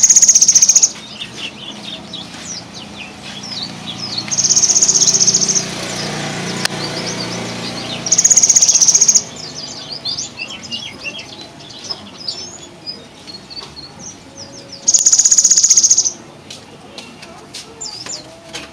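Cinereous tit (gelatik batu) giving a loud, high, rapid buzzing trill, 'trrrrr', four times, each about a second long. Many short, high chirps come in between the trills.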